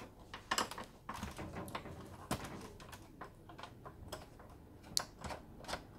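Irregular small metallic clicks and ticks of a screwdriver turning out screws on the metal frame at the back of an all-in-one PC, taking off the stand.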